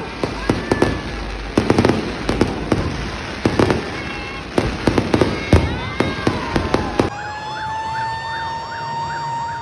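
A crowd shouting amid many sharp bangs and cracks. About seven seconds in it cuts to an emergency-vehicle siren: a steady wailing tone with a fast up-and-down yelp over it.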